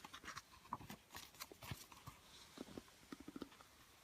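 Faint rustling and soft clicks of a book's paper pages being handled and turned, a cluster of short sounds in the first two seconds and a few more near the end.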